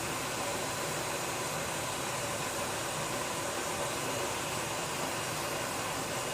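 Gas escaping with a steady, even hiss that holds at one level.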